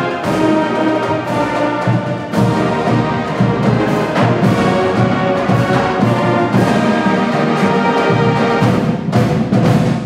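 Loud brass-led music with timpani, held notes over regular drum strikes.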